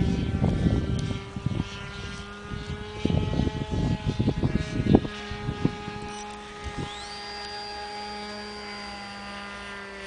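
Motor and propeller of a small RC powered glider droning steadily overhead during a flyby, with gusts of wind buffeting the microphone in the first half. About seven seconds in, a higher whine rises and then holds steady.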